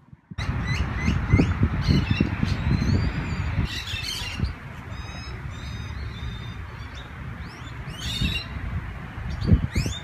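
A flock of migratory birds on a tidal mudflat calling: many short, high chirps and calls, overlapping and scattered throughout. Under them runs a heavy low rumble of wind on the microphone, strongest in the first half.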